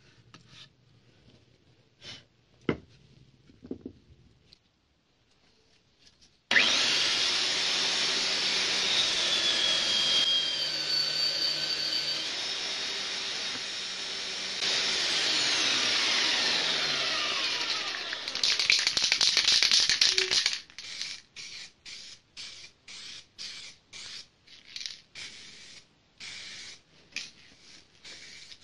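Faint knocks of a wooden piece being handled, then a bench-mounted belt sander runs loudly for about fourteen seconds, sanding the wood, its pitch sinking for a while partway through. After it stops, an aerosol spray can is shaken, its mixing ball rattling about two to three times a second.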